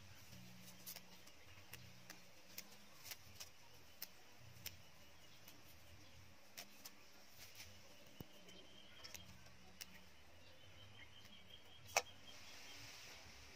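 Faint, scattered clicks and snaps as holy basil leaves are plucked from their stems and dropped into a water-filled aluminium bowl. One sharper tap comes near the end.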